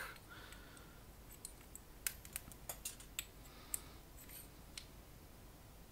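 Faint, light metallic clicks and taps, a dozen or so scattered over a few seconds, as a rheostat's brass shaft and its metal bearing block with the rotation limiter are handled and fitted together.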